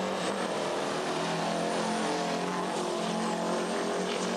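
Big-rig diesel engines of two semi tractors running at full throttle as they accelerate from a standing start in a drag race, a loud, steady engine drone.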